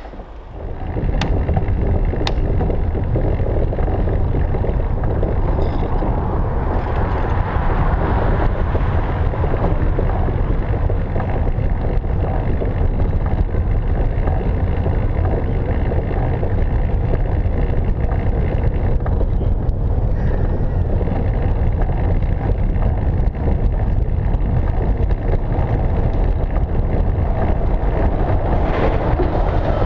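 Velomobile on the move: a steady low rumble of its tyres and running gear carried through the shell, mixed with wind noise, with two faint clicks about one and two seconds in.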